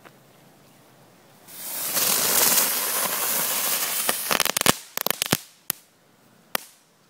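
Crackle jack firework going off: a loud rushing hiss for about three seconds, then a fast string of sharp crackles, and two last single pops.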